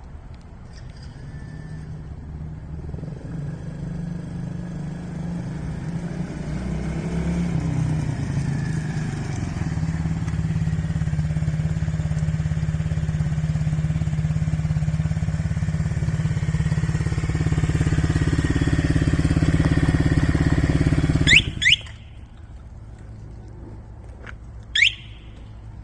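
Orion Sniper 120 quad's 120cc engine running and growing gradually louder, then cutting out abruptly about 21 seconds in as its alarm gives two short rising chirps. A single further chirp comes near the end.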